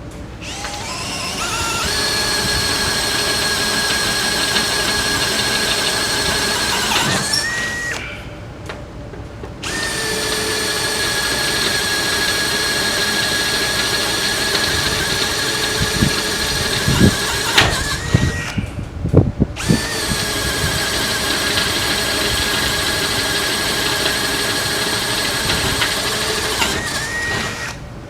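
Power drill boring through a metal power-trowel pan with a squealing bit, in three long runs with short pauses between them. The whine rises briefly in pitch as each run ends, and a few sharp knocks come between the second and third runs.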